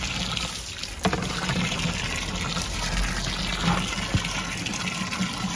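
Water from a garden hose pouring steadily into a plastic barrel of chicken manure and water, filling it up for fermented liquid fertiliser. A single light knock about a second in.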